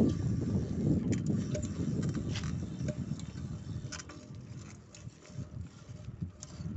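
Wind rumbling on the microphone during a slow ride, dying away about two-thirds of the way through, with a few scattered clicks and rattles.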